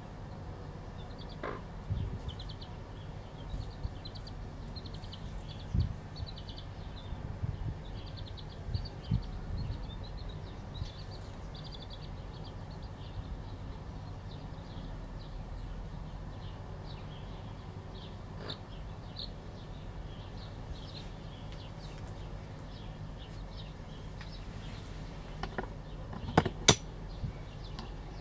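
Chicks peeping: quick runs of short, high notes, thickest in the first twelve seconds and sparser later, over a steady low rumble. A few dull knocks come through, and a pair of sharp, louder knocks near the end.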